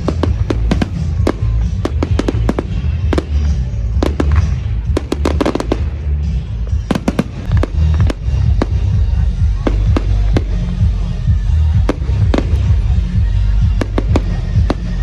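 Fireworks display: a rapid run of sharp bangs and crackles from bursting shells, several a second, over a steady low rumble.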